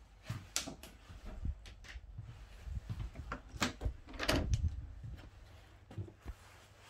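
Interior door of a static caravan being handled and opened: a string of clicks and knocks from its lever handle, latch and panel, loudest about four seconds in.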